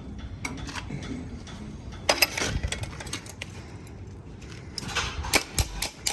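Metal clattering and clanking in irregular bursts, loudest about two seconds in and again near the end.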